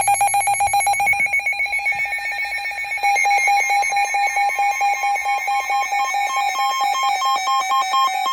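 Loud electronic alert tone beeping rapidly, about ten pulses a second, with a second, slightly higher tone cutting in and out near the end.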